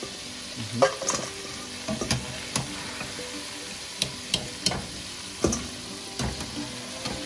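Battered chicken breast pieces deep-frying in hot oil with a steady sizzle, broken by repeated sharp clicks and knocks of a utensil stirring and turning the pieces in the pot.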